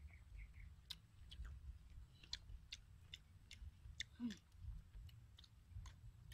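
Faint, irregular clicks and smacks of eating by hand: mouth sounds of chewing and fingers picking apart a grilled fish. A brief falling sound comes about four seconds in, over a low rumble.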